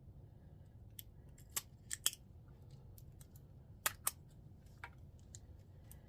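Sharp plastic clicks and taps as a printhead is handled and fitted into an ink tank printer's carriage, the loudest coming in pairs about two seconds in and again about four seconds in.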